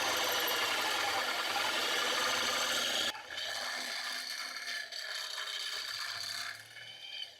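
Drill bit boring through a metal collar: a steady grinding hiss that cuts off sharply about three seconds in, followed by quieter, uneven scraping of the bit against the metal.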